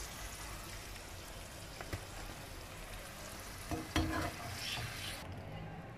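Potato slices deep-frying in hot sunflower oil: a steady sizzle, with a light tap about two seconds in and a short clatter about four seconds in. The sizzle drops away near the end.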